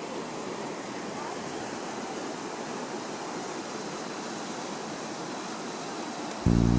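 Waterfall rushing, a steady even roar of falling water. Music starts abruptly near the end.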